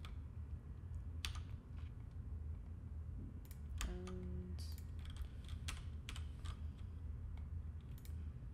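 Computer keyboard keys tapped at irregular intervals, single clicks and small clusters, entering Blender shortcuts, over a steady low background hum. A short low tone sounds about four seconds in.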